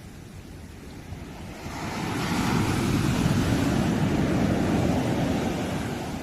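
A sea wave breaking and washing up the shore: a rush of surf that swells about a second and a half in, holds for a few seconds, then ebbs away near the end.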